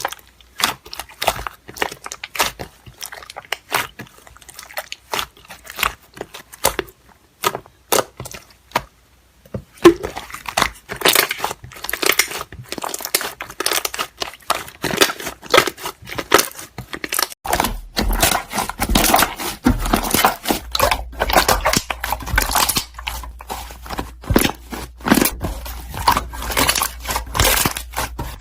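Slime being squeezed, pressed and stretched by hand, making irregular crackling clicks and pops. Sparse for the first ten seconds, then busier and more continuous.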